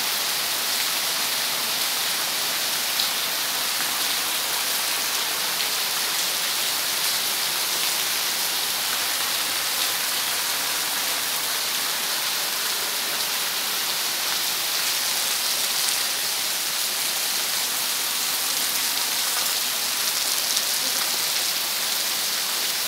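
Heavy rain falling steadily on a paved courtyard and garden foliage: an even, unbroken hiss with no let-up.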